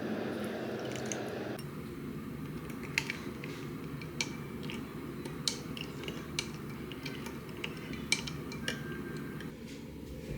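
Light clinks and taps of small hard objects being handled, a dozen or so spread out, a few with a short ringing tone, over a low steady hum. A louder steady rumble cuts off about one and a half seconds in.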